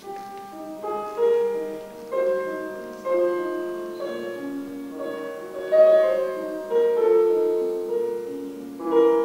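Piano playing slowly, a few notes a second, single notes and overlapping chords that ring on and fade.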